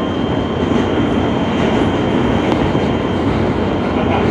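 R160 subway car with Alstom propulsion running through a tunnel, heard from inside the car: a steady, loud rumble of wheels on rail and tunnel noise, with a faint steady high tone over it.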